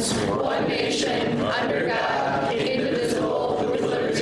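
A group of teenage voices in unison, the chant-like sound of many people saying or singing the same words together.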